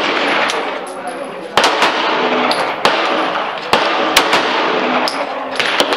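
Glock 17 9mm pistol fired in slow single shots, a sharp crack about once a second, over a steady hiss.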